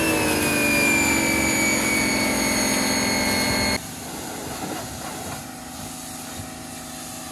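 Electric pressure washer's motor starting up with a high whine that rises and settles into a steady run. About four seconds in it drops abruptly to a much quieter steady hum as the washer sprays.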